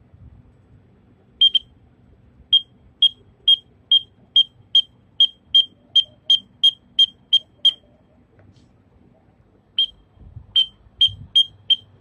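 Short, sharp, high whistled chirps, all at one pitch, repeated about two to three a second, calling released young racing pigeons down from the air. The run breaks off for about two seconds and then starts again.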